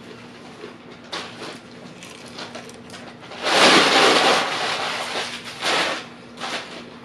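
Crisp breading of fried chicken crackling as the piece is pulled apart, then a loud crunchy bite about three and a half seconds in, followed by fading chewing.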